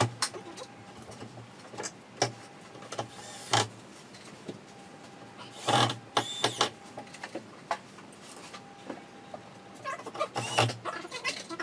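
Knocks, bumps and scrapes of chipboard cabinet panels being handled and fitted during wardrobe assembly, in scattered sharp strokes with the loudest clatter about halfway through and another cluster near the end.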